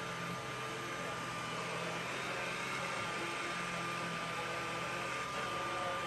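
iRobot Roomba s9+ robot vacuum running on a carpet: a steady whir from its suction fan with a thin, constant whine, its two counter-rotating brush rolls sweeping the rug.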